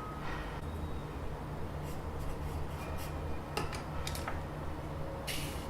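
Scattered light clicks and a short scratching sound near the end as a caliper and pen are handled on a desk, over a steady low hum.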